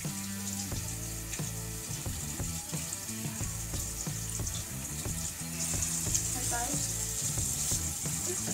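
Background music with a steady hiss-like noise over it, the hiss growing louder about six seconds in.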